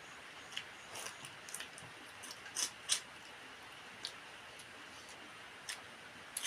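Close-up eating sounds: scattered sharp, wet clicks and smacks of a mouth chewing food, with the loudest pair a little before and at about three seconds in.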